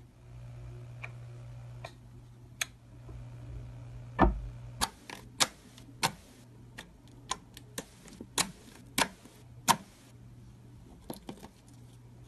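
Clear slime being poked and pressed with the fingers, giving sharp pops and clicks. They come sparsely at first, then crowd together and are loudest from about four to ten seconds in, over a steady low hum.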